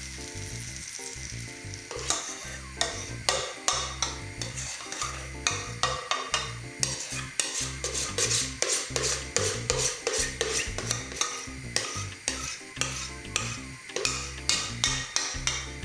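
Sweet omelette batter sizzling in a frying pan of hot butter, then a utensil scraping and tapping against the pan again and again from about two seconds in.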